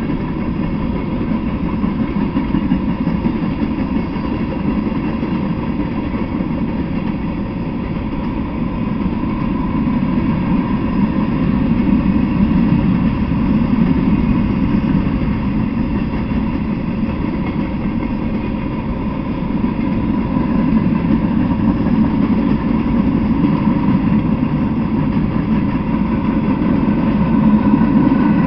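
Freight train cars rolling past: a steady low rumble of steel wheels on the rails, swelling slightly a few times as the cars go by.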